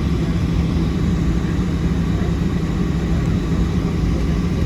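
Steady low drone of a Boeing 737-700's CFM56-7B jet engines heard inside the passenger cabin, with an even hum and no change in pitch.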